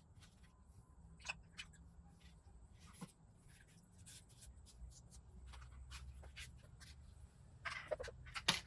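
Faint scratching and rubbing with scattered small clicks and taps, the kind made handling small parts by hand, with a busier cluster of clicks and rubs near the end.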